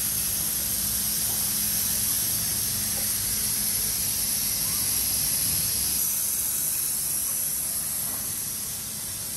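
Steady hissing background noise with a low hum beneath it; the hum drops away about six seconds in and the level eases slightly near the end.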